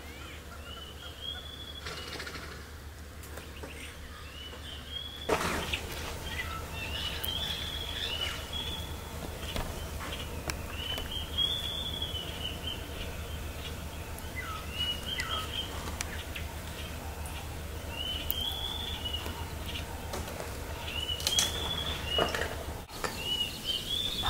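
A bird calling over and over: short whistled notes that rise and fall, in little phrases every few seconds, over a low steady hum.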